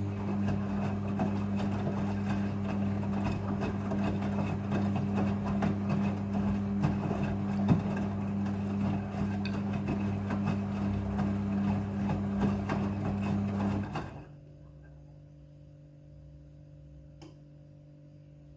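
Front-loading washing machine moving water during its rinse: a steady electric pump or valve hum with rushing water, stopping abruptly about fourteen seconds in and leaving only a faint hum.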